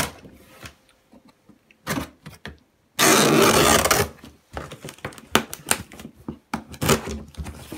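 A small knife cutting the packing tape on a cardboard box: scratchy scraping strokes and taps, with a loud, harsh tearing noise lasting about a second a little after halfway.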